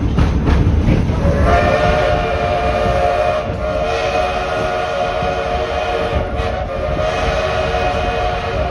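Edison No.1 4-4-0 steam locomotive's steam whistle sounding one long, steady blast that starts about a second and a half in, over the rumble of the moving train.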